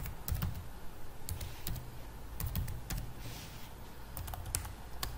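Computer keyboard being typed on: irregular, quick keystroke clicks.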